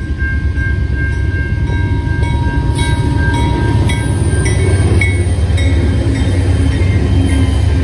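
Canadian National freight locomotives, led by a GE C44-9W diesel-electric, passing close with a heavy low engine rumble and a steady high whine. From about three seconds in, repeated sharp clanks of wheels over the rail joints come in.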